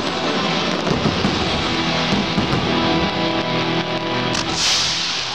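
Loud music from a stadium sound system during a fireworks show, with firework bursts crackling and popping over it and a brief hiss about four and a half seconds in.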